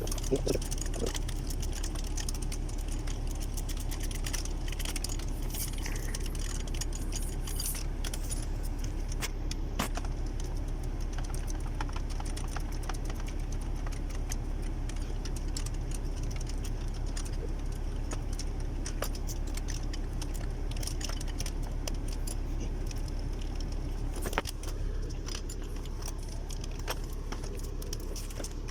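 Scattered light metallic clinks and ticks of hand tools on engine parts, over a steady low hum.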